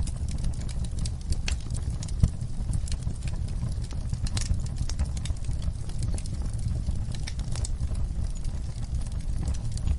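Wood fire in a fireplace crackling, with irregular sharp pops over a steady low rumble of the burning; one louder pop a little after two seconds in.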